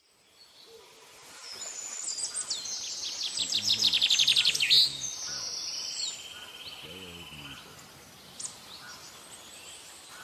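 Wild birds singing over steady outdoor ambience: a rapid high trill that grows louder and stops abruptly about five seconds in, followed by a lower buzzy trill and scattered chirps. Faint low calls are heard twice, about three and seven seconds in.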